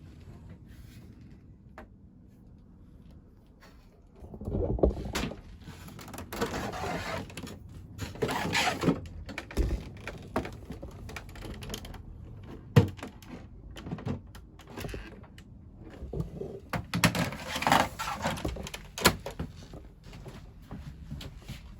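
Irregular knocks, clunks and scraping of plastic and metal parts being handled, starting about four seconds in, with a sharp knock around the middle.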